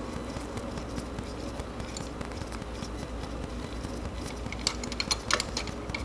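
Light metallic clicks and clinks of an old spark plug and its socket tools being handled as the plug is unscrewed by hand and lifted out of the engine, starting about four and a half seconds in, over a steady low hum.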